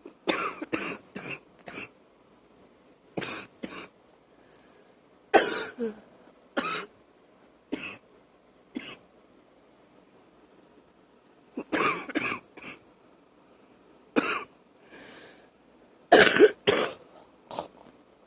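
A woman's wet cough, coming in several fits of two to five short coughs with single coughs in between.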